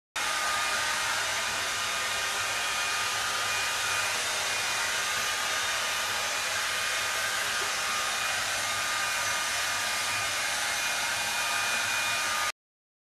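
Hand-held hair dryer running steadily: a constant rush of air with a faint steady whine. It cuts off suddenly near the end.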